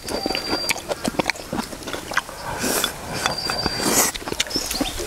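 Close eating sounds: two people chewing and smacking mouthfuls of rice and spicy boiled fish, with short clicks of wooden chopsticks against porcelain bowls.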